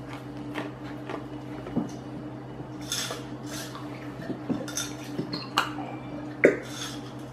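Light clinks and knocks of tableware, with a few brief squirting noises, as two bottles of clear school glue are squeezed into a mixing bowl. A steady low hum runs underneath.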